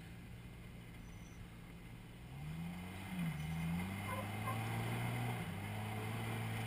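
Lifted Jeep Cherokee's engine under load as it climbs a rock ledge. It is quiet at first, rises in pitch and level about two seconds in, dips briefly, then holds a steady higher pitch.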